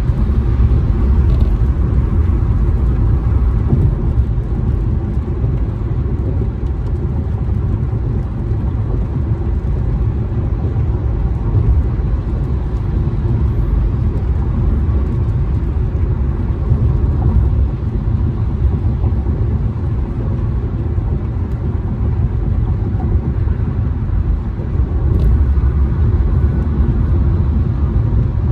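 Car cabin road noise: a steady low rumble of tyres and engine while driving on a rain-wet freeway.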